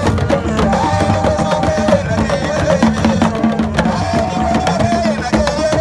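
Traditional drumming for the Dafin dance: dense, fast drum strokes with a wavering melodic line over them.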